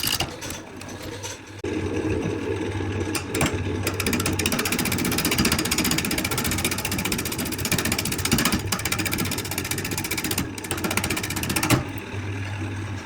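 A woodworking power tool's motor running with a fast, even buzz; the sound steps up about a second and a half in and drops back near the end.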